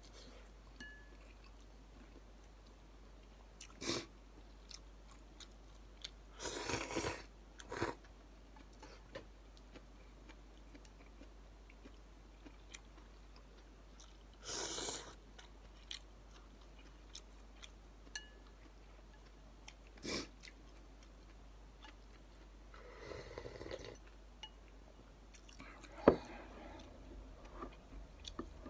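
A person eating instant ramen noodles with chopsticks: quiet chewing with several short slurps as noodles are lifted to the mouth. A sharp knock near the end is the loudest sound.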